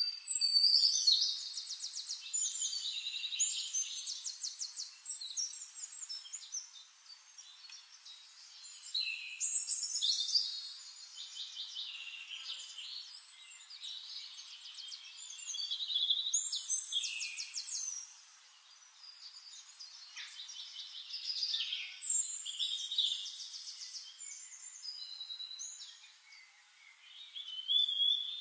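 Songbirds singing: high, rapid trills and warbling phrases that come in bursts every few seconds, with short quieter gaps between.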